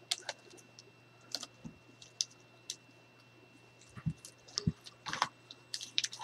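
Scattered clicks, taps and rustles of chipboard and peeled tape backing being handled on a cutting mat, with two soft thumps about four seconds in and a denser patch of rustling near the end.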